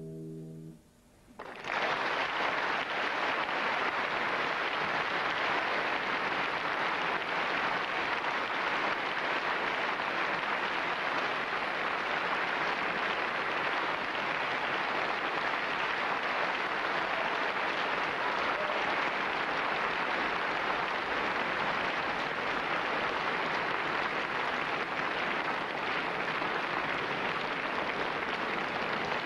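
The last chord of a classical guitar rings out and fades in the first second, then an audience starts applauding about a second and a half in and keeps up steady applause.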